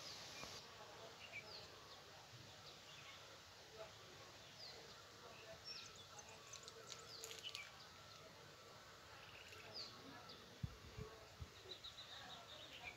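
Faint outdoor quiet with scattered short, high chirps of small birds calling from the wooded hillside. There are a few soft low knocks about eleven seconds in.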